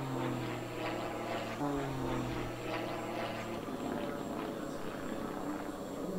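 Aerobatic propeller plane's piston engine droning overhead, its pitch stepping up about one and a half seconds in and then slowly falling.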